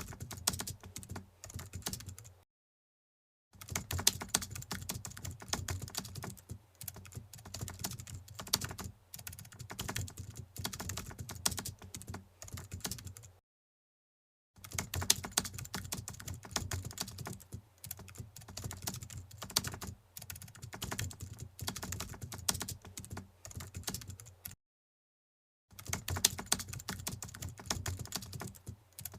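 Rapid typing on a computer keyboard, a dense run of key clicks. It stops dead three times for about a second of total silence before resuming.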